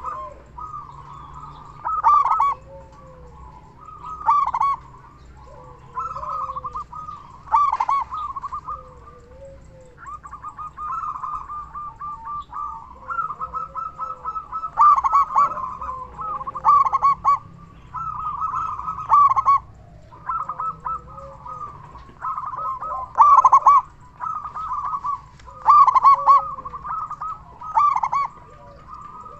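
Zebra dove (perkutut) singing its staccato cooing song, loud phrases repeated every second or two without a break.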